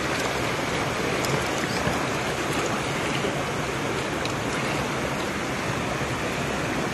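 Water sloshing and splashing steadily as people wade through a shallow river.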